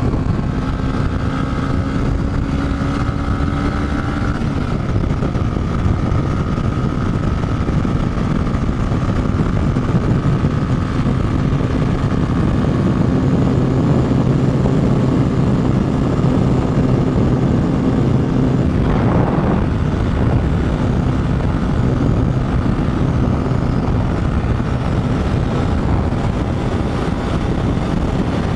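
Motorcycle engine running steadily at a held pitch over a constant rush of noise, with a slight pitch change about four seconds in and a brief rise-and-fall sound about two-thirds of the way through.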